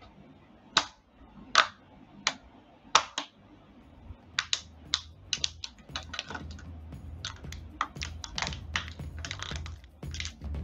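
Sharp cracks and snaps of a toy mouse being crushed under the sole of a wooden clog: a few separate cracks in the first three seconds, then faster crackling.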